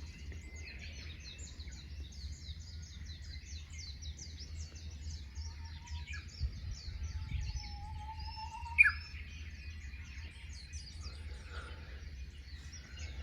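Many small birds chirping and twittering at once in a steady chorus of quick, high notes, with one sharper, louder call about nine seconds in, over a low steady rumble.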